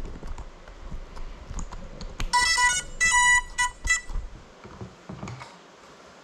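Short electronic beeps from a GEPRC Cinelog 35 FPV drone lying still after coming down: a quick run of high beeps starting about two seconds in and lasting under two seconds, after a few faint knocks.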